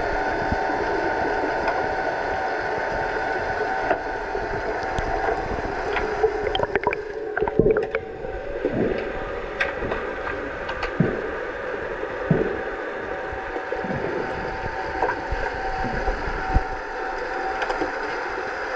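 Underwater hockey play heard from under the water: a steady hum with bubbling and swishing from swimmers' fins, and scattered sharp clicks and knocks, most of them about midway through.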